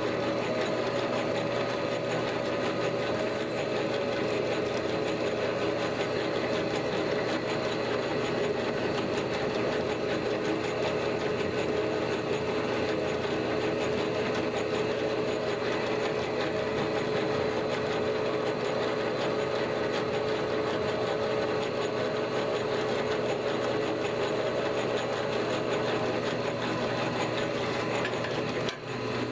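Enco 9x20 metal lathe running steadily, its motor and gears giving a constant multi-tone whine, while a parting tool is fed in to cut off a small metal part. The level drops sharply just before the end.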